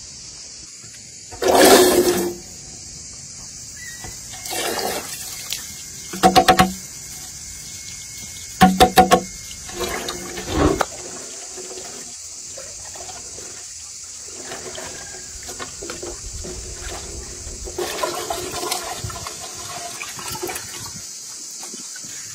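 Water running from a hose into a large metal pot and splashing as small plums are washed and stirred by hand. Several short, louder splashing bursts come in the first ten seconds.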